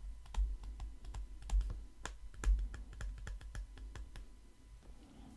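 Stylus tapping and clicking against a tablet screen while handwriting, a quick irregular run of small clicks that thins out about four seconds in.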